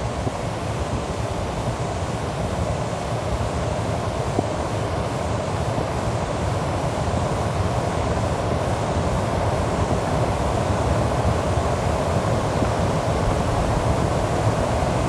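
Experimental noise music: a dense, unchanging wall of static noise, heaviest in the low end and in a band in the middle, slowly getting louder.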